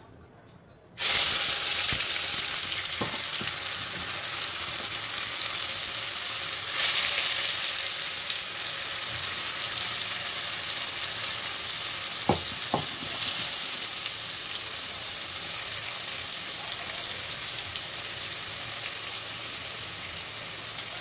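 Onion and garlic paste dropped into hot mustard oil in a non-stick kadhai: a loud sizzle starts suddenly about a second in and carries on steadily, easing slowly as it fries. A couple of light knocks come about halfway through.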